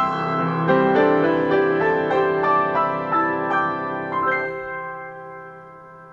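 Upright piano playing the closing phrase of a jazz ballad: a run of single notes over held chords, then a final chord about four and a half seconds in that is left to ring and fade.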